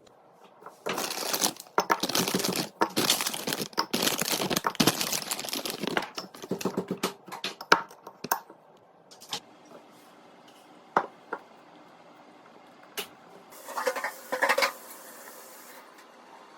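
Plastic packaging rustling and crinkling for several seconds, then scattered clicks and light knocks of items being handled. Another short crinkling rustle comes near the end.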